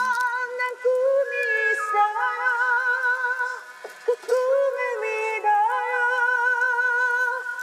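A woman singing a slow ballad in a high, trained voice, holding long notes with wide vibrato and pausing briefly about four seconds in.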